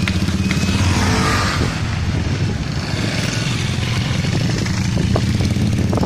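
Motorcycle engine idling close by, a steady low throbbing.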